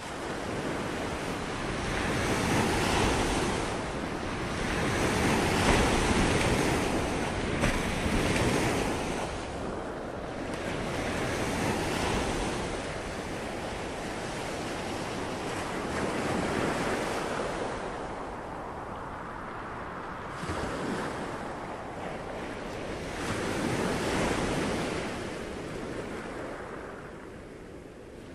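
Ocean waves washing in, a rushing noise that swells and falls back every few seconds.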